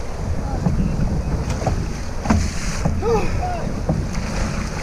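Choppy surf sloshing and slapping against a kayak hull, with wind rumbling on the action camera's microphone. A short voiced call, a shout, is heard about three seconds in.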